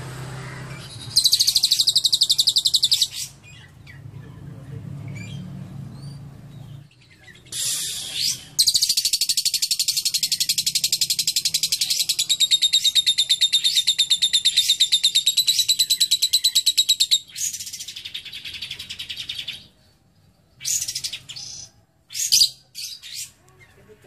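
Lovebird singing: a short, rapid chattering trill, then a long unbroken one of about eight seconds, the drawn-out 'ngekek' chatter that keepers prize, with a few short chirps near the end.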